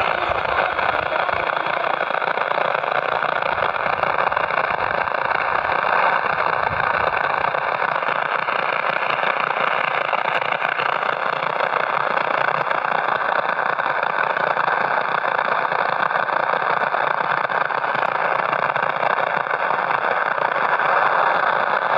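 Transistor radio speaker giving a steady static hiss, with a faint thin whistle running through it.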